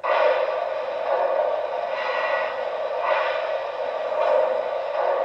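Sound system of a Lionel O-gauge Baldwin K4s model steam locomotive powering up while it stands: a steady hiss of simulated steam that starts suddenly and swells softly about once a second.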